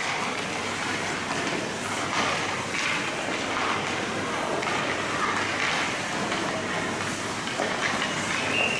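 Ice hockey practice noise: skate blades scraping the ice as players skate in and shoot, with scattered knocks of sticks and pucks and indistinct voices. A short high tone sounds near the end.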